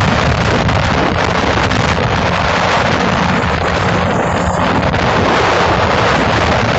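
Motorboat under way, its engine humming steadily beneath heavy wind noise on the microphone.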